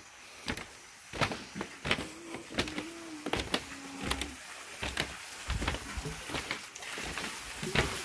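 Footsteps on a walkway of split-bamboo slats, the loose slats clicking and knocking irregularly underfoot, with a drawn-out creak lasting about two seconds near the middle.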